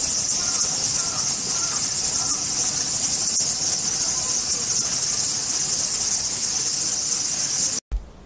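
Dense, steady high-pitched insect chorus, shrill and unbroken, with faint short chirps beneath it; it cuts off suddenly near the end.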